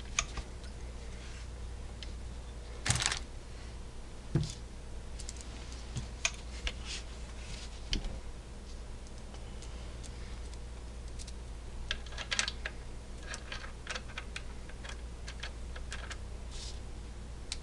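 Scattered light clicks and taps of small metal parts as a rear sight is fitted and tightened onto an AR-15 upper receiver, over a faint steady low hum.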